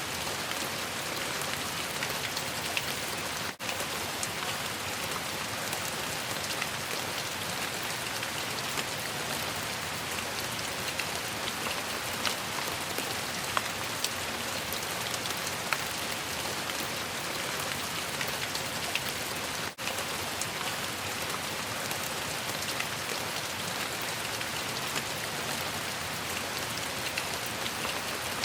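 Steady rain falling on a surface, an even hiss with scattered sharper drop ticks, cutting out for an instant twice.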